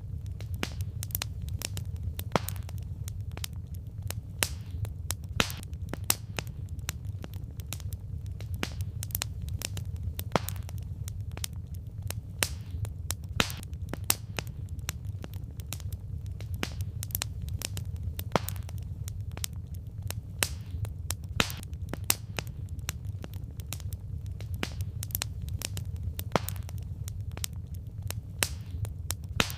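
Campfire logs crackling: irregular sharp pops and snaps of varying loudness over a steady low rumble of the flames.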